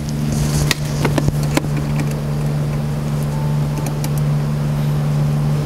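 A steady low mechanical hum, with a few light metallic clicks as a short flat-tip screwdriver works the band clamp on the throttle body's rubber air inlet.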